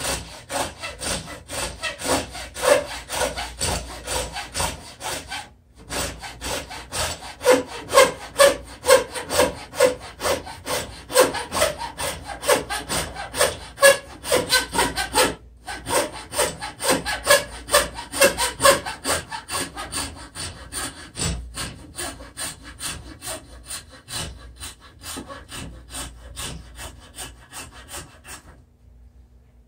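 Hacksaw cutting through wood by hand: rapid back-and-forth rasping strokes, about two a second. The strokes pause briefly twice and stop shortly before the end.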